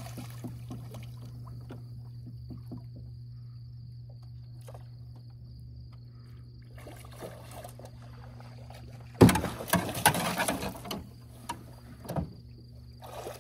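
A motor's steady low hum on a jon boat. About nine seconds in comes a sudden loud burst of splashing and knocking lasting about two seconds: a fish shot with a bow being hauled in and thrashing at the side of the aluminium boat.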